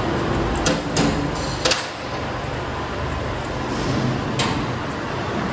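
Steel extension springs clinking against each other as they are hooked together and handled, a few sharp metallic clinks over a steady background hum.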